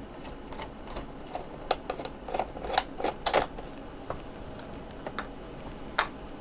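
Screwdriver working a small screw loose from a cassette recorder's power-supply housing: a run of irregular light clicks and scrapes, with a few sharper clicks around the middle and one near the end.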